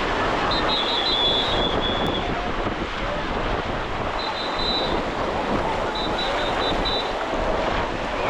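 Surf washing in under the steady hubbub of a crowded beach, with distant voices. A few runs of short, high, broken peeps come through over it.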